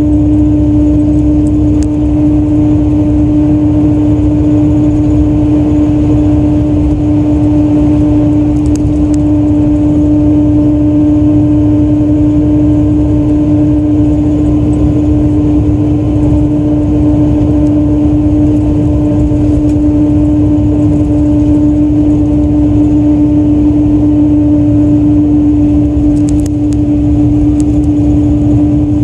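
Hino Selega highway coach (QRG-RU1ASCA) idling while stopped, a steady low engine rumble with a constant mid-pitched hum over it.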